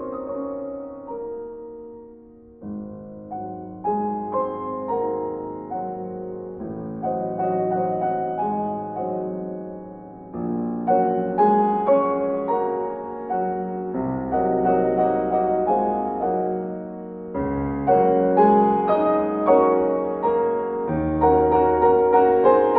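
Background piano music, notes struck and ringing in phrases that swell and fade.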